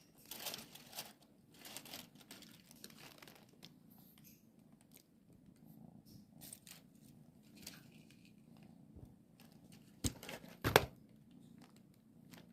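A plastic bag rustling and crinkling in short bursts, then two sharp knocks near the end, the second the loudest.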